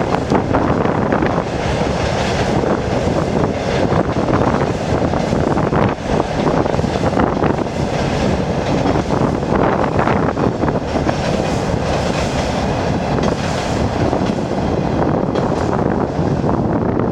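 Passenger train's coaches rolling across a railway bridge: a steady rumble with a rapid clatter of wheels on the rails, and wind buffeting the microphone.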